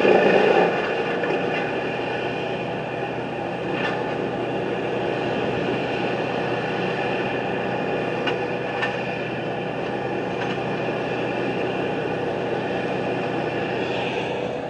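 Steady engine-like drone of machinery running, even throughout with a constant hum and a few faint clicks.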